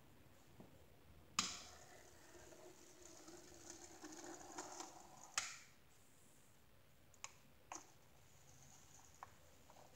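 Small HOn30 model locomotive running along the track, its tiny motor and gears whirring faintly for about four seconds, bracketed by a sharp click as it starts and another as it stops. A few light clicks follow.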